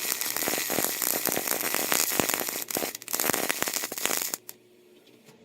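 Wire-feed welder arc crackling and popping steadily as a weld bead is laid, then cutting off suddenly about four seconds in.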